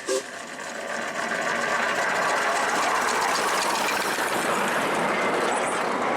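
Miniature steam locomotive running with its train, the running noise building over the first two seconds and then holding steady, just after a last short toot of its two-note whistle at the very start.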